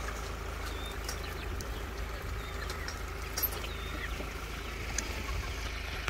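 A large flock of Kadaknath chickens making scattered short clucks and chirps over a steady low rumble.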